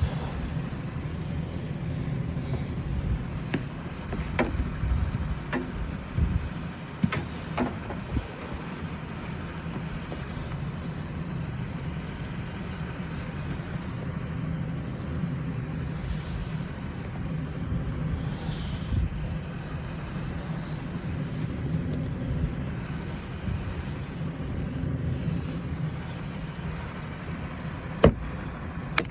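Steady low rumble of a motor vehicle running, with a few sharp clicks, several in the first quarter and one near the end.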